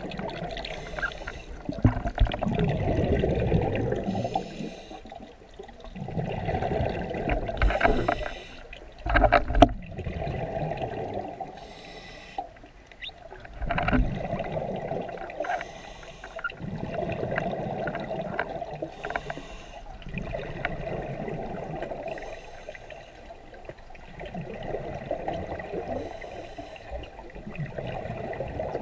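Scuba diver breathing through a regulator underwater: each exhaled breath bubbles out in a gurgling burst every three to four seconds. A couple of sharp knocks come about a third and halfway through.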